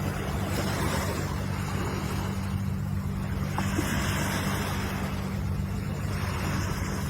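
Ocean waves washing ashore in a steady, even rush, with a constant low hum underneath.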